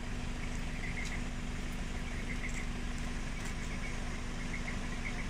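A vehicle engine idling with a steady low hum, with faint repeated high chirps over it.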